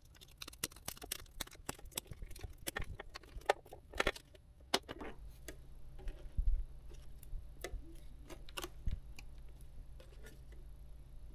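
Small snips and fingers clicking and ticking as stitches are picked out of the electroluminescent wire trim, a quick run of clicks over the first five seconds that thins out after, with a soft low thump about six and a half seconds in.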